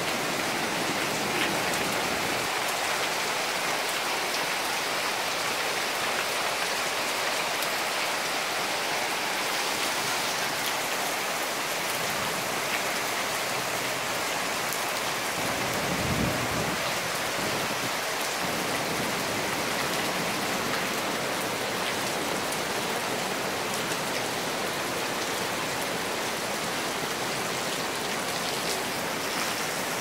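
Heavy rain falling steadily, an even hiss of rain on leaves and surfaces, with a brief low rumble about halfway through.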